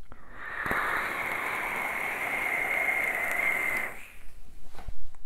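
A long draw on an e-cigarette: a steady hiss with a high, even tone in it as air is pulled through the atomizer, lasting about three and a half seconds before it stops. A short click follows near the end.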